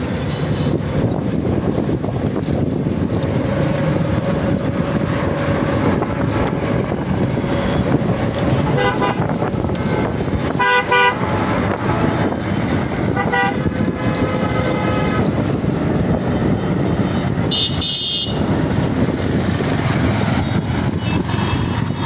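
Wind rushing over the microphone of a moving rider, with vehicle horns tooting several times, short beeps in the middle and a higher one a few seconds later.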